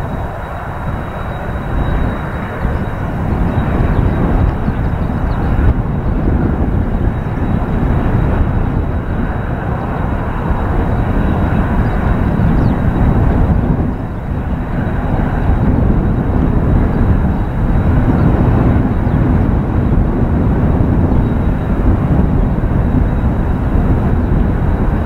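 Kawasaki T-4 jet trainers' turbofan engines running as the jets taxi: a loud, steady noise with a thin high whine. Strong wind buffets the microphone.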